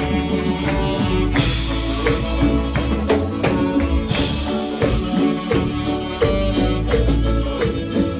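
Music with guitar, bass and drums keeping a steady beat, with some singing.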